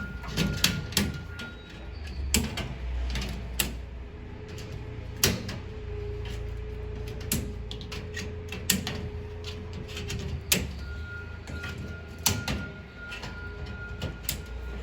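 Metal suspended-ceiling grid cross tees being clicked and knocked into place in the main runners: a run of irregular sharp metallic clicks and clacks over a low steady hum.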